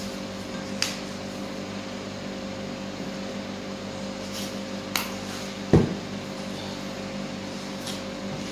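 Steady low machine hum, like a fan or appliance running, with a few light clicks and one dull knock a little before six seconds in.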